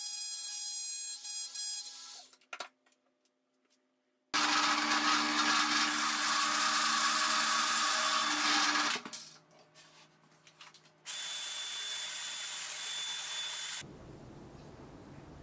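A compact trim router running with a steady whine, which cuts off about two seconds in. After a short silence, a benchtop drill press bores into an oak board for about five seconds, drops to a lower hum, then bores again for about three seconds. Near the end the sound falls to a faint hiss.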